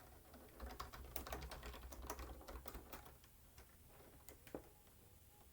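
Typing on a computer keyboard: a quick run of keystrokes for a couple of seconds, then a few scattered single presses.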